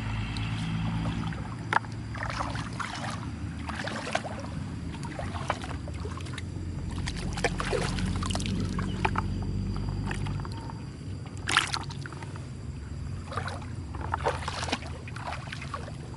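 Muddy water sloshing and splashing in irregular short bursts as hands work through it, with one sharper splash about two-thirds of the way in, over a steady low hum.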